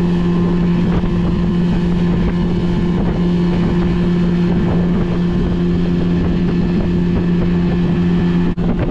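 A 50-horsepower outboard motor runs at high speed with a steady drone, pushing the boat across the lake, with wind on the microphone and water rushing past. There is a brief break in the sound near the end.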